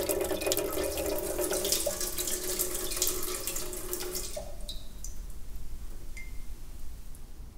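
Tap water pouring and splashing into a glass jar in a sink, which stops abruptly about four seconds in. A few single drips plink afterwards.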